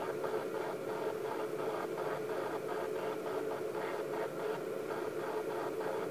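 Steady hum and hiss with a faint flutter repeating several times a second.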